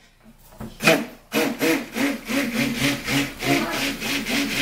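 Stick blender switched on after a click about a second in, then running in soap batter of oils and lye solution with a whir that pulses about three times a second. It is blending the batter to emulsification.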